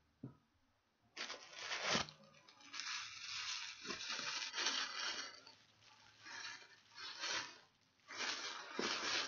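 Tissue paper rustling and crinkling as it is handled and pulled open, in a series of bursts starting about a second in.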